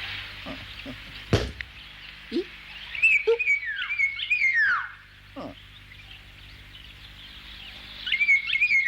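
Animal calls: two bouts of high, chirping, squealing calls with pitches that slide downward, the first about three seconds in and the second near the end, over a steady hiss. A single sharp click comes about a second and a half in.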